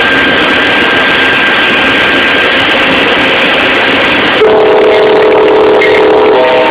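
Steady noise of trains on the tracks, then about four seconds in a locomotive's multi-tone air horn sounds loudly. It breaks briefly near the end and sounds again.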